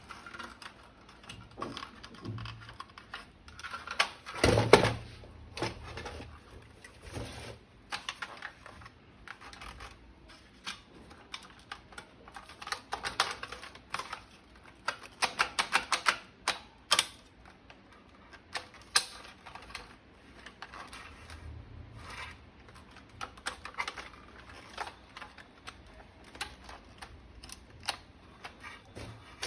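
Plastic toy guns and their parts being handled: bursts of quick clicking and rattling, with a louder knock about four seconds in.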